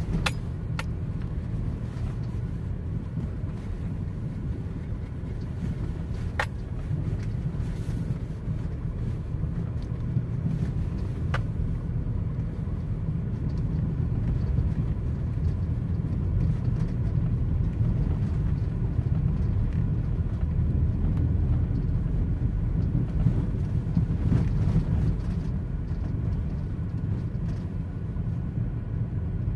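Steady low rumble of a car being driven, heard from inside: Subaru Outback road and engine noise. A few brief faint clicks come in the first second and again around six and eleven seconds in.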